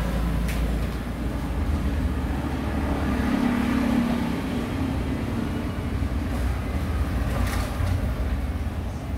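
Steady low mechanical rumble.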